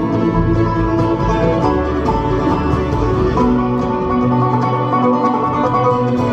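Live bluegrass band playing an instrumental passage: banjo, fiddle, mandolin, acoustic guitar and upright bass together, no singing.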